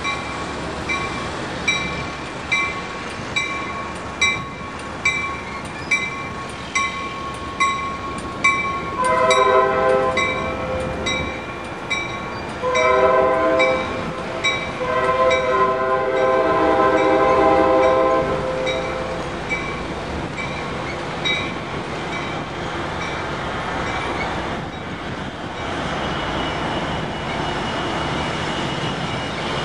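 Grade-crossing warning bell dinging about once a second while an Amtrak Pacific Surfliner train sounds its multi-note air horn in three blasts, the last one the longest, for the crossing. The bell stops about two-thirds of the way through, leaving the steady rumble of the train rolling past into the station.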